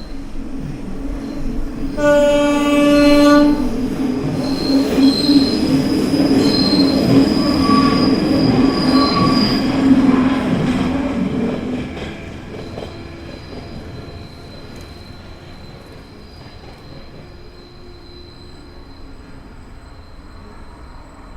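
A train sounds its horn once, a single pitched blast of about a second and a half, about two seconds in. The loud noise of the train passing follows, with high wheel squeal. The noise fades after about twelve seconds to a quieter, steady rumble with a faint squeal.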